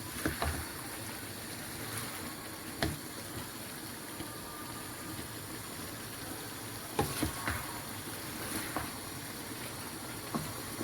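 Vegetable sauce with chicken and shrimp simmering in a pan with a steady bubbling hiss. A few sharp knocks of the stirring spoon against the pan are scattered through it.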